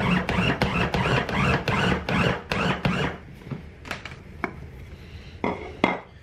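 Electric mini chopper's motor running in short pulses, its blade cutting cold butter into flour with a rough grinding sound. It stops about three seconds in, followed by a few plastic clicks and knocks from the chopper bowl.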